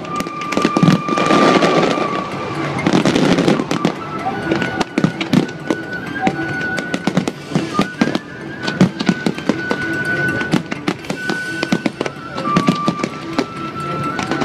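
Fireworks display: a dense stream of sharp bangs and crackling from bursting aerial shells, thickest in the first few seconds, with a held high tone sounding over much of it.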